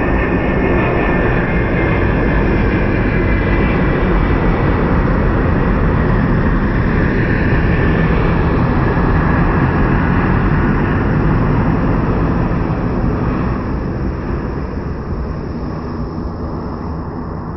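A Boeing 737 freighter's twin CFM56 turbofan engines passing low overhead on landing approach: a loud, steady jet noise with a whine that falls slightly in pitch. It fades over the last few seconds as the plane moves away.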